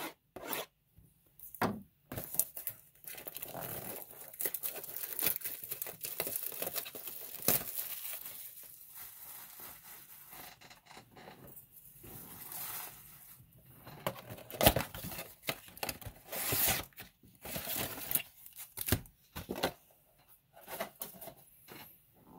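A retail box of 2019 Topps Chrome Update baseball cards being torn open, and its foil card packs crinkling as they are pulled out and set down: irregular ripping and rustling with short pauses.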